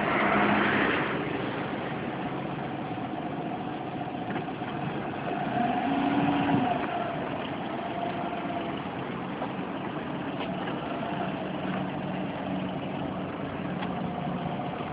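Car engine idling and pulling away slowly with the steering wheel turned, the situation in which this car makes an abnormal noise. About six seconds in, a louder tone rises over the engine for a second or so.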